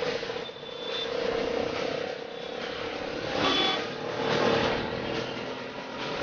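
Auto-rickshaw engine running steadily while under way, heard from aboard, with street traffic around it. A couple of brief high tones come through, about one second and three and a half seconds in.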